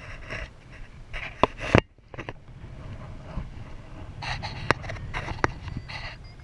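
Air rushing over the camera microphone in paraglider flight, coming in uneven gusts, with a few sharp knocks.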